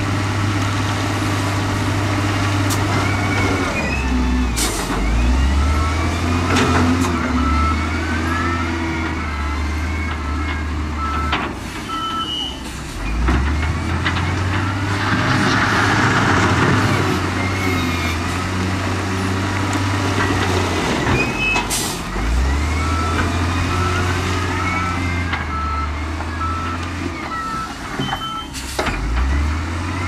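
Diesel engines of heavy earthmoving machines working, revving up and dropping back several times under load, with high metallic squeals and a few clanks. A reversing alarm beeps steadily through two stretches of several seconds, and a rush of noise swells about halfway through.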